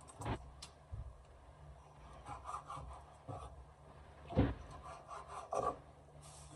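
Kitchen knife cutting raw chicken breast on a wooden cutting board: a few scattered knocks of the knife on the board, the loudest about four and a half seconds in, with soft rubbing and handling sounds between them.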